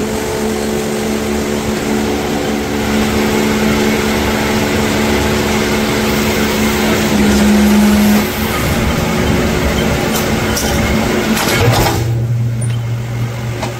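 Electric upsetting machine humming steadily while its current heats an engine valve stem red-hot, with dense workshop noise underneath. About twelve seconds in, the hum drops to a lower tone.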